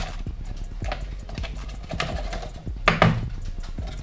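Packaging being opened by hand: crackling and knocking as a box and its wrapping are handled. There is a sharp crackle at the start and a louder one about three seconds in.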